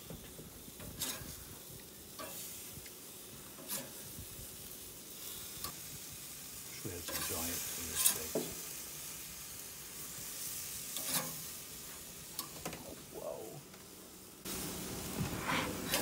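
Marinated bluefin tuna steaks sizzling on the hot grates of a gas grill, with the scrape and clack of a spatula on the grates as the steaks are flipped. The sizzle is loudest about halfway through, as a batch is turned.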